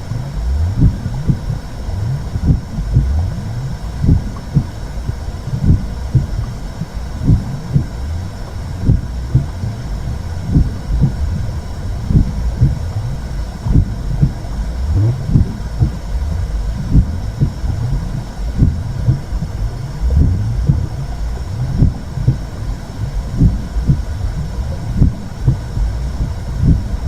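Womb sound for soothing a baby: a low, muffled whooshing rumble with a pulse about once a second, like a heartbeat heard from inside the body.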